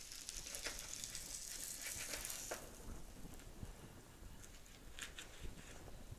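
Grilled cheese sandwiches sizzling on a hot electric contact grill. The sizzle stops about two and a half seconds in as they are lifted off, followed by a few light clicks of utensils on a plate.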